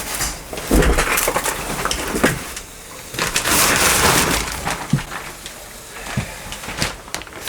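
An old gravity hot water cylinder being pulled out of place: irregular knocks and clunks, with a longer scraping rush about three seconds in.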